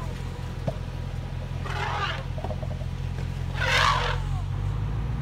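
Two short trumpeting calls from young African elephant calves, one about two seconds in and a louder one near four seconds, over a steady low background hum.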